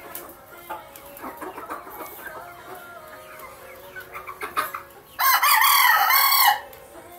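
Chickens clucking in short calls while they feed, then near the end a rooster crows once, loud, for about a second and a half.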